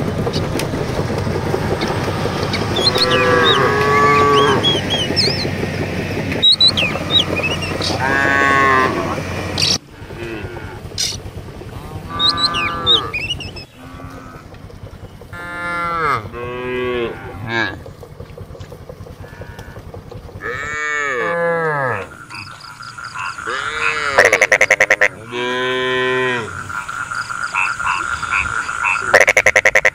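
Cattle mooing again and again in short, rising-and-falling calls, one after another. A steady rumbling noise runs under the first few calls and cuts off suddenly about ten seconds in.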